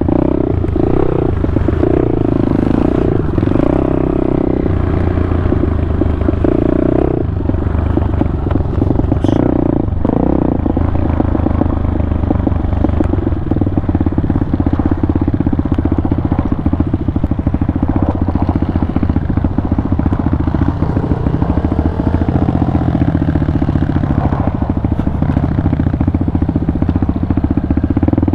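Pitster Pro 190 pit bike's single-cylinder four-stroke engine running while being ridden. Its revs rise and fall with the throttle, with two brief drops in the first third.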